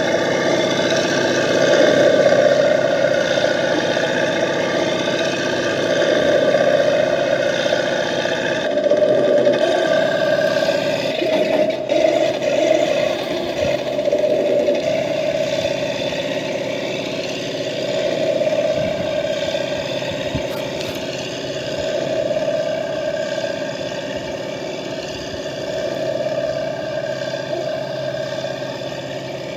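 1/16 scale RC Sherman tank running on gravel with a steady, engine-like drone that wavers in pitch as it drives. It grows slightly fainter near the end as the tank moves away.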